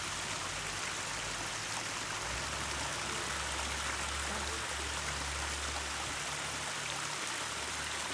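A small cascade of water spilling over rocks into a river, making a steady rushing and splashing.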